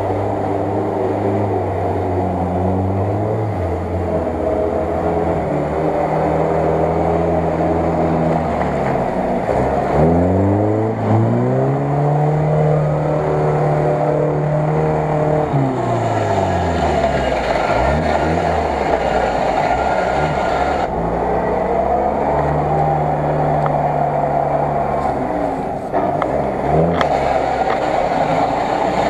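UAZ-469 off-roader's engine working hard as it wades through deep water and mud, the revs rising and falling: a sharp climb about ten seconds in, held for several seconds before dropping away, then another spell of high revs later.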